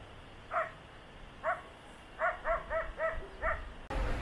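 A dog barking repeatedly: short, high-pitched barks, two spaced apart and then a quick run of four before a last one, about seven in all.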